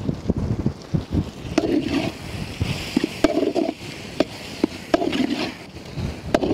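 A steel spoon clinking and scraping against the side of an aluminium cooking pot as a thick masala with fresh herbs is stirred, in about ten irregular knocks.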